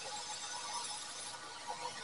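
Steel edge of a circular meat-slicer blade being ground on a powered grinder, a steady high grinding hiss over the machine's running. The highest part of the hiss falls away about a second and a half in, as the blade comes off the abrasive.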